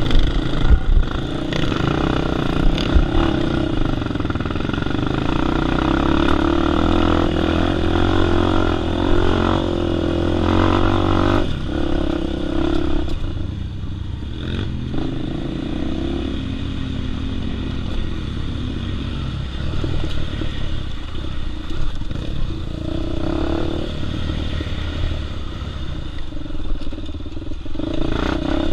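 Honda Tornado 293cc single-cylinder four-stroke dirt bike engine running under changing throttle on a rough trail. The revs build until about ten seconds in, drop off sharply, then run lower and uneven, with the bike rattling over the ruts and rocks.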